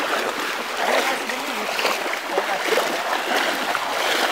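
Floodwater splashing and sloshing as several people wade through it pushing a motorcycle by hand, over a steady rush of water.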